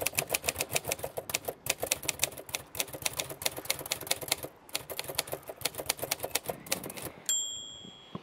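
Manual typewriter typing: a fast clatter of keys striking, with a short break about halfway. Near the end the typing stops and the carriage's margin bell dings once and rings out.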